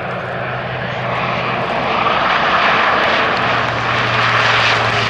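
Alenia C-27J Spartan's twin Rolls-Royce AE 2100 turboprops and six-bladed propellers droning on landing approach with gear down. A steady low propeller hum sits under a rushing engine noise, and both grow louder as the aircraft comes closer.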